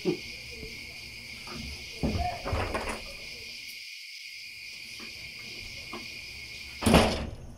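Crickets chirping steadily in the night, with a few soft knocks and rustles and one sudden loud noise near the end.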